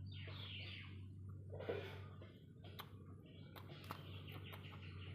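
Chickens clucking, with a few sharp clicks over a steady low hum.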